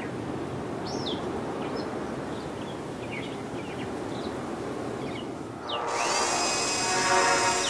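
Steady street ambience with birds chirping now and then. Near the end it gives way to a high whirring like a small motor, with a rising whine, as the surveillance camera comes into shot.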